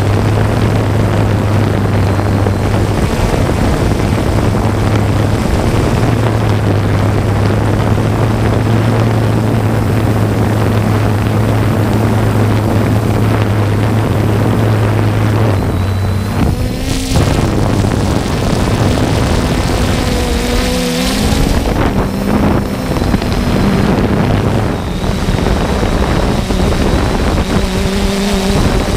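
Small UAV's motors and propellers running, with a steady hum. The pitch shifts and wavers in the second half as the motor speed changes. Rushing wind noise on the microphone throughout.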